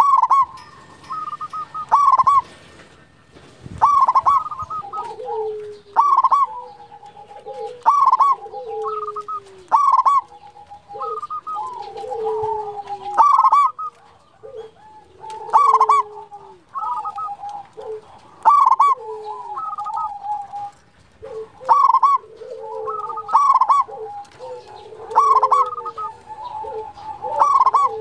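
Zebra dove (perkutut) singing, repeating its coo phrase about every two seconds: a few sharp high notes followed by lower falling coos.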